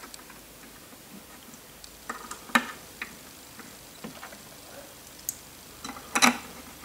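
Small metallic clicks and taps of screws and a hand tool on a metal gantry plate as the screws into the linear guide block are fastened, with two louder knocks, about two and a half seconds in and again about six seconds in.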